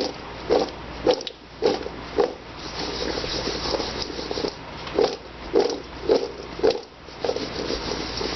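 Diced potatoes coated in olive oil and seasoning being tossed in a bowl, knocking and tumbling against its sides in a rhythm of about two shakes a second, in three spells with rustling between.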